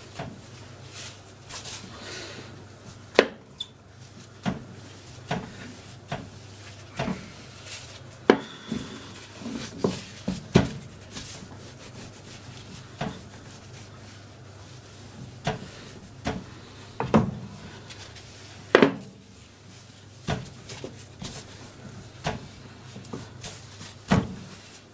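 Wooden rolling pin rolling out yeast dough on a floured surface: irregular sharp wooden knocks as the pin is set down and pushed, with soft rubbing and hand pats between.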